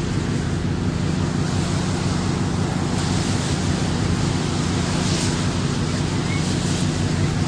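Steady rushing wind noise on a phone's microphone, with a low steady hum underneath.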